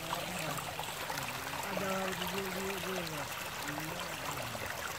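Water running steadily through the slats of a bamboo cage fish trap set in a shallow channel, a continuous trickling stream. A faint, distant voice can be heard now and then.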